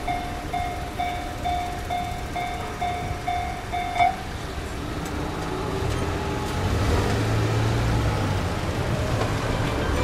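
Japanese railway level-crossing warning alarm sounding an evenly repeated ding, about two a second, that cuts off about four seconds in as the crossing clears. Road traffic then rumbles and pulls away across the tracks.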